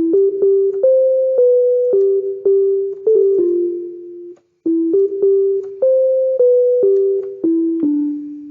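Casio CTK-2400 electronic keyboard playing a simple single-note melody in a piano-like voice, each note struck and decaying. The phrase is played twice with a short break between, the second time ending on a lower, longer note.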